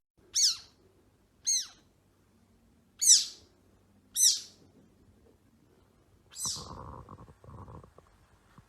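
Kitten mewing: five short, high-pitched mews about a second apart, each rising then falling in pitch. A second and a half of rustling with a few soft knocks follows the last one.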